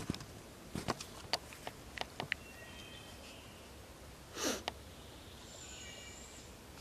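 Scattered light clicks and ticks in the first half, one short breathy rush of air about two thirds of the way in, and faint whistled songbird phrases in the background.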